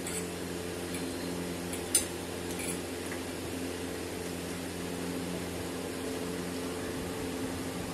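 Metal forks clicking and scraping lightly on plates during eating, with one sharper clink about two seconds in, over a steady mechanical hum like a room fan.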